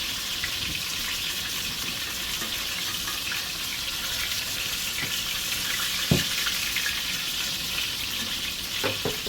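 Flour-breaded rabbit pieces frying in hot oil: a steady sizzle, with a single knock about six seconds in.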